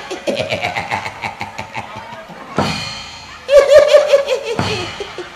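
Live gamelan-style stage accompaniment driven by fast, even drum strokes, with a loud crash about two and a half seconds in and a wavering pitched note about a second later.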